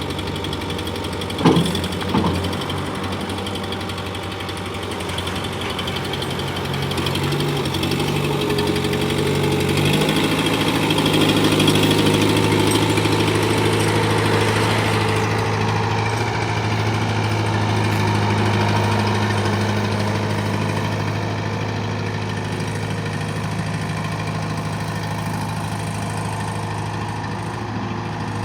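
Skid steer engine running steadily, with two sharp clanks about a second and a half in and a change in engine speed about ten seconds in.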